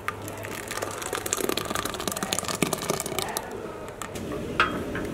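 Thick blended puree pouring from a blender jar into an empty steel pot: a dense run of small wet splats and clicks that thins out after about three and a half seconds, with a couple of single clicks near the end.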